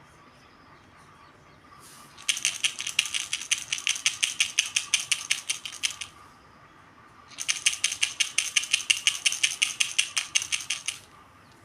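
Crocheted baby rattle shaken rapidly in two bouts of about four seconds each, its rattle insert clicking at roughly eight shakes a second.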